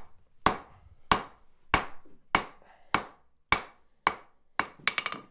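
Hand hammer striking red-hot steel on an anvil to draw out a taper, about one blow every 0.6 s, each with a short high ring. Near the end comes a quick run of several rapid blows.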